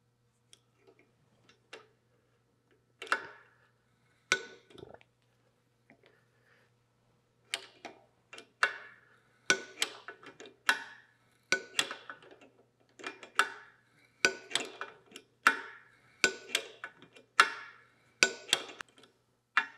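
Hand-tapping a 12 mm thread into a blind hole in a cast-iron casting with a bar tap wrench: sharp metallic clicks with a short ring, a few scattered at first, then about one or two a second as the wrench is swung back and forth in partial turns and the tap cuts.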